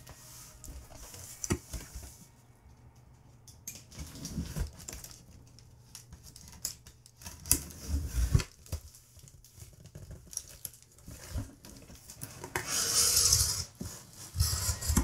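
Packing tape on a cardboard box being slit with a small blade, with scattered taps, scrapes and knocks of hands on cardboard. A louder stretch of rustling and tearing comes about twelve seconds in as the box flaps are pulled open.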